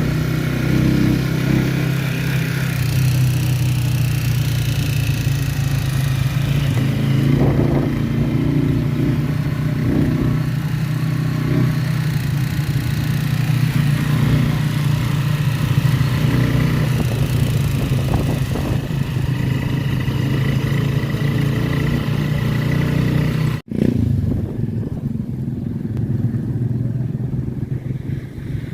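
A vehicle engine running steadily at speed, a low hum with road and wind noise, briefly cutting out near the end.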